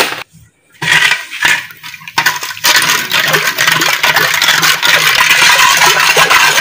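A steel ladle stirring sugar into milk in a steel pot, scraping and clinking rapidly against the bottom and sides. A couple of short scrapes come first, then steady stirring from about two and a half seconds in.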